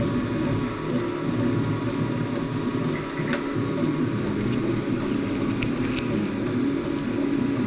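A home-built Ultimaker-clone 3D printer running: its motors whir in several shifting tones over a steady hum, with a couple of faint clicks.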